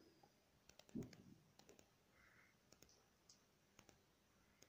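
Dog chewing a plush toy rat: faint, scattered clicks of teeth and jaw working on the toy, with one soft low thump about a second in.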